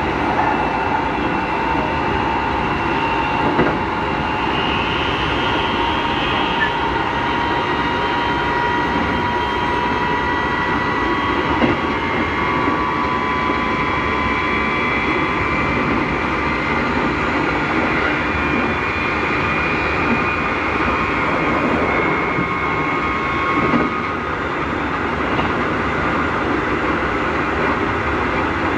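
Keikyu 1000 series electric train with Mitsubishi IGBT-VVVF traction equipment, heard from inside the motor car. The motors whine loudly as several tones that climb slowly in pitch and then hold fairly steady, over a constant rumble of wheels on rail. The loud motor noise is abnormal for this set, which the uploader puts down to Mitsubishi motors transferred from set 1105.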